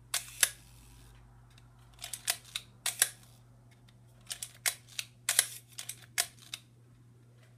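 Leica M3 rangefinder worked by hand: sharp shutter releases alternating with runs of clicks from its single-stroke film-advance lever, several cycles with short pauses between. The body is freshly overhauled and the wind runs smoothly.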